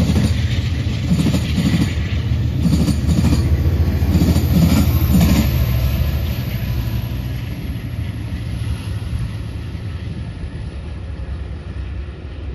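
Diesel-hauled passenger train passing close by: a steady low locomotive drone with the clack of coach wheels over the rails. It is loud for the first half and fades away after about six seconds.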